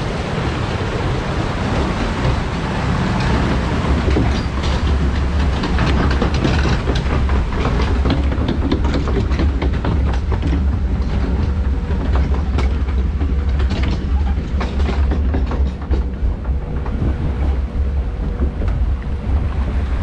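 Log flume boat being hauled up the lift hill on its chain conveyor: a steady low drone with rapid clattering and clicking from the chain and rollers under the hull, with water rushing along the trough at the start and again near the end.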